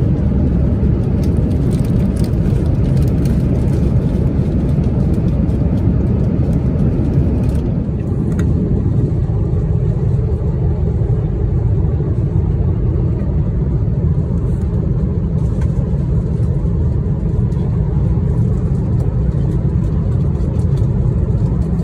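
Steady cabin roar of an Airbus A350-900 in flight, a mix of airflow and engine noise heard from inside the passenger cabin. It is a deep, even rumble with a lighter hiss on top, and the hiss thins slightly about eight seconds in.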